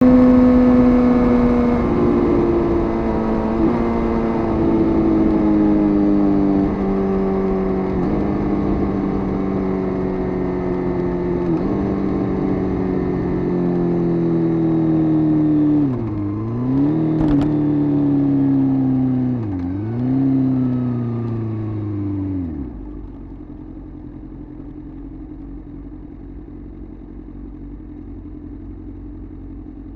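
Suzuki GSX-R motorcycle engine slowing down, its pitch falling steadily with several sudden steps up as it shifts down through the gears, and two short throttle blips. It stops at about 23 seconds, leaving only a low steady hum.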